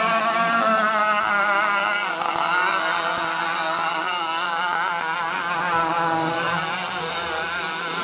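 Several petrol RC racing boats with two-stroke chainsaw and brushcutter engines running at high revs together, their overlapping pitches wavering up and down as they race.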